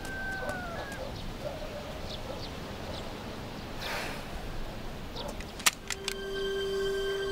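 Farmyard ambience with small birds chirping and hens in the background. A single sharp click comes just before six seconds in, and a sustained music note enters shortly after.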